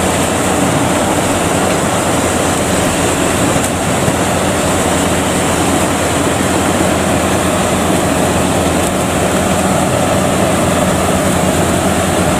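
World WOD102PLUS rice combine harvester running under load while cutting and threshing rice: a loud, steady mechanical drone of its diesel engine and threshing machinery, without let-up.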